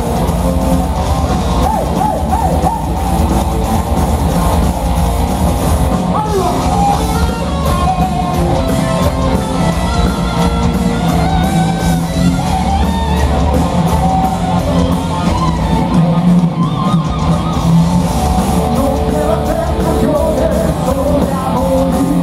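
Heavy metal band playing live: distorted electric guitars, bass and drums, with a singer's vocals over the top.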